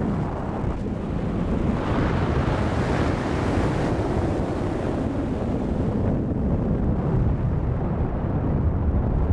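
Airflow buffeting the microphone in paraglider flight: a steady, loud wind rumble that grows hissier for a few seconds from about two seconds in.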